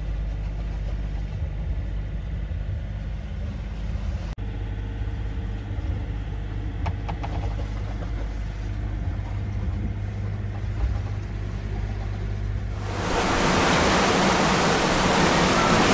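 Sailboat's engine running steadily while motoring through a calm night, a low even drone. About 13 seconds in it gives way to a louder rush of wind and waves on a rough sea.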